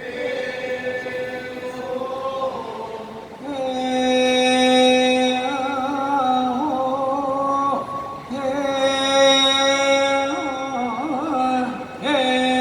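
Chanted singing in Thai style: voices hold long, wavering notes with melodic ornaments, in phrases broken by short pauses about every four seconds.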